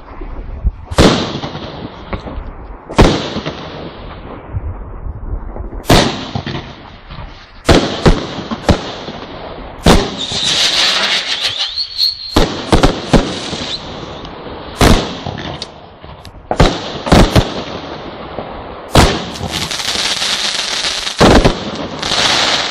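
Consumer firework battery (cake) firing, with a sharp bang every second or two as its shots burst. Two stretches of dense crackling from glittering stars come about halfway through and near the end.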